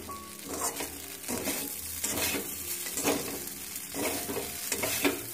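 A metal spatula stirring and scraping flattened rice (poha) in a metal kadai, in repeated strokes about twice a second, with sizzling underneath as the pan sits on a low gas flame.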